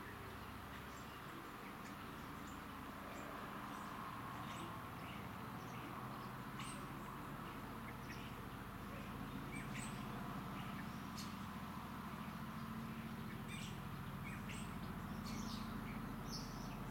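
Birds chirping over the low, rhythmic rotor beat of approaching Boeing CH-47 Chinook tandem-rotor helicopters, which grows steadily louder.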